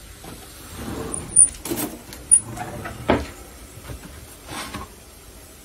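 A few sharp clicks and knocks of things being handled on a kitchen counter, the loudest two about a second apart, then a duller knock.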